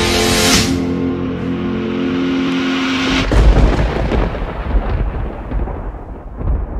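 A quieter passage of background rock music: a held chord rings steadily for about three seconds, then gives way to a low, noisy rumble whose treble fades away.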